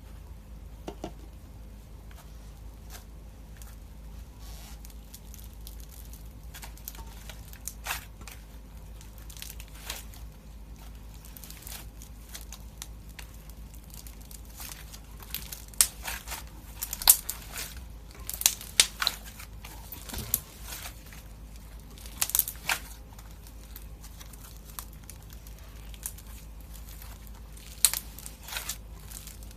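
Crunchy slime being squeezed and pressed by hand, giving irregular crackles and pops. They are sparse at first and come thicker and louder past the middle and again near the end, over a faint low hum.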